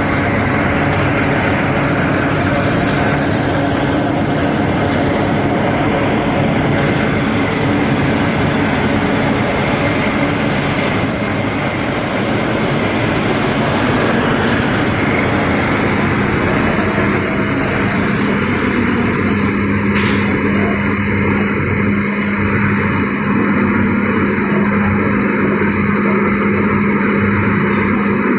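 Soap production line machinery running: a loud, steady mechanical din with a constant hum whose tone shifts lower about two-thirds of the way through.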